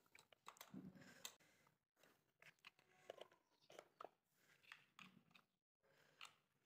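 Near silence, with a few faint scattered clicks and rustles of hands handling an LED bulb, its test holder and a mains plug.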